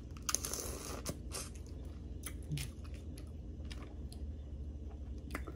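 Boiled crawfish being peeled and eaten by hand: shells cracking and crackling, with chewing. A short burst of crackle comes near the start, then scattered small sharp cracks and clicks.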